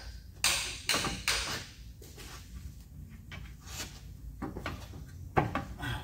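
Metal clunks and clinks of a rear wheel hub bearing assembly being handled and seated on the knuckle: a few sharp knocks in the first second and a half, then a louder one near the end.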